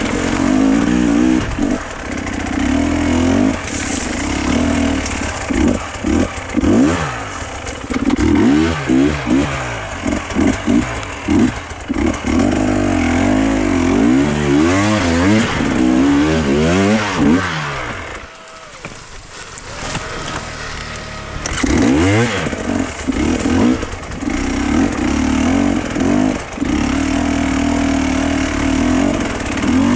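Motor vehicle engine running under changing load, its pitch repeatedly rising and falling as it revs, easing off to a quieter stretch about two-thirds of the way through before picking up again.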